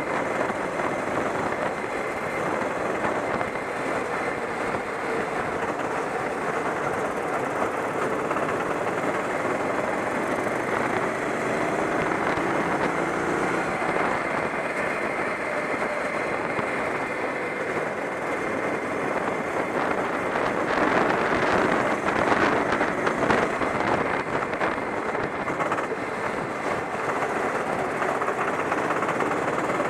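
Go-kart engine running hard at racing speed, heard onboard along with rushing wind and the engines of other karts close by; it gets a little louder and rougher about two-thirds of the way through.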